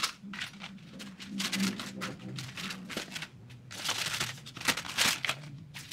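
Pink tissue paper and plastic-wrapped items rustling and crinkling as a hand shifts them around in a gift box, in uneven spells that are busiest about four to five seconds in.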